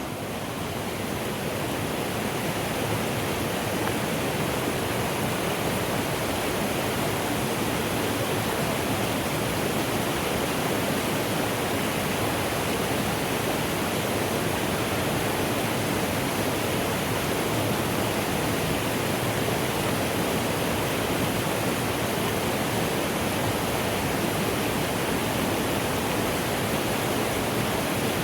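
Mountain stream (the Suzu River) rushing steadily over rocks, fading in over the first couple of seconds.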